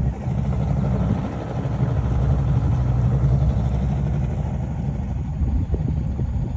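Boat motor running steadily, a low even hum, as the boat moves across calm water.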